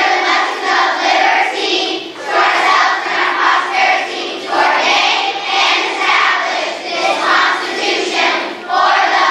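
A large group of children singing together in loud phrases, a third-grade school choir.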